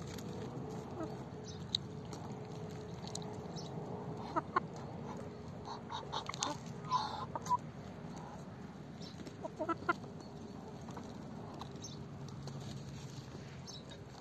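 Domestic hen clucking in short, scattered calls, most of them in the middle stretch, with a few sharp clicks among them. A steady low background noise runs underneath.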